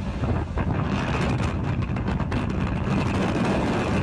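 Steady rushing wind buffeting a phone microphone at road speed, mixed with the rumble of the moving vehicle, heard from inside a car riding on a moving tow truck.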